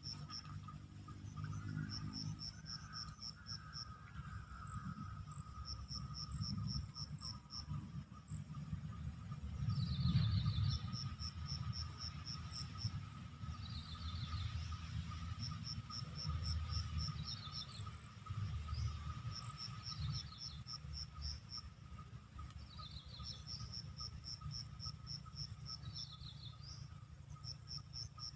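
Insects chirping in repeated trains of rapid, high-pitched pulses, with shorter falling chirps between them over a steady high drone. A low rumble runs underneath.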